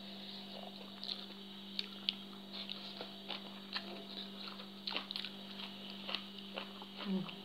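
Eating sounds: small wet smacks and clicks of chewing rice noodles and papaya salad eaten by hand, coming irregularly, over a steady low hum.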